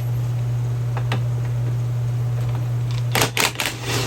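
Metal clicks of a wrench and socket working a bolt on a hydraulic floor jack: a couple of single clicks, then a quick run of ratchet-like clicks about three seconds in, over a steady low hum.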